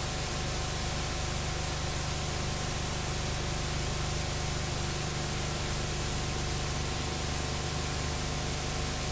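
Steady hiss with a low electrical hum underneath, unchanging throughout: the recording's own noise floor, with no other sound above it.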